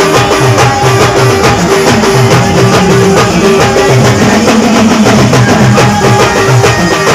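Live band playing timli dance music, loud and steady: driving drums with a dense, even beat under a repeating melodic line.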